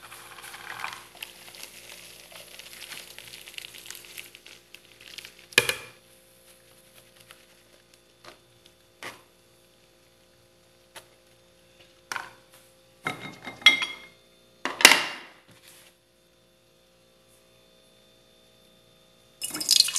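Kitchen utensils handled on a countertop: scattered knocks and clinks of a metal sieve, plastic blender parts and a glass jar. The first few seconds hold a soft splashing hiss of blended juice draining through the sieve, and near the end juice starts pouring into a glass jar.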